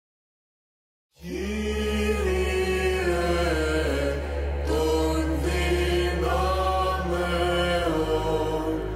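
Small mixed choir singing unaccompanied Byzantine chant: a melody moving over a low held drone (the ison). The chant starts after about a second of silence, and the drone shifts pitch near the end.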